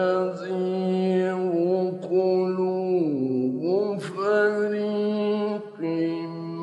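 Male Qur'an reciter's voice chanting in the slow, melodic tajweed style, holding long drawn-out notes that glide up and down, with a brief pause for breath about six seconds in.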